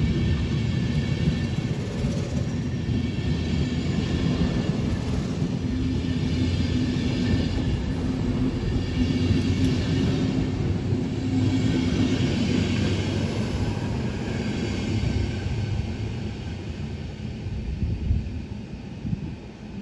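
DB Intercity passenger coaches rolling past at close range: a steady rumble of wheels on rail, with a swell of higher wheel noise every few seconds, fading near the end as the last coach draws away.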